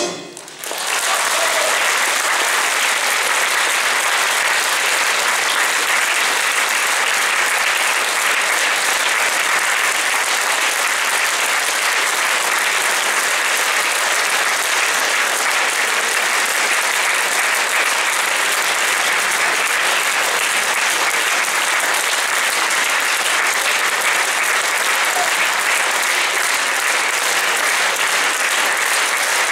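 Audience applause filling a concert hall, starting about half a second in, just after the orchestra's last note, and continuing steadily.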